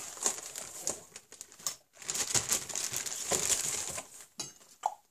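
Packing material rustling and crinkling as parts are unwrapped and lifted out of a cardboard box, with the densest crinkling in the middle and a few sharper crackles near the end.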